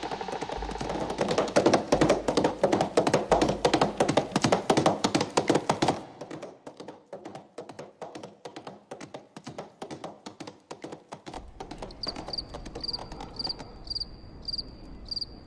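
Horse hoofbeats: a fast run of hoof strikes, loud at first and then fainter from about six seconds in. In the last few seconds a cricket starts chirping in an even, repeating pulse.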